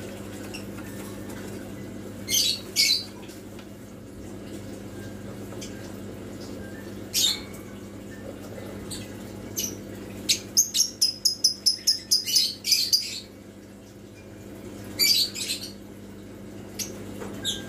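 A bird calling in short high chirps, with a rapid run of about a dozen chirps in the middle, over a steady low hum.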